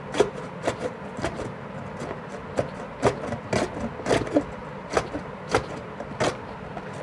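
A small onion pushed back and forth across the stainless-steel blade of a plastic box slicer, cutting thin slices: repeated short scraping strokes, about two a second.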